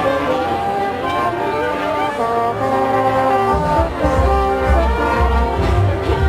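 A marching band plays a tune with its brass section carrying the melody in several parts. About three and a half seconds in, the low bass end gets noticeably louder.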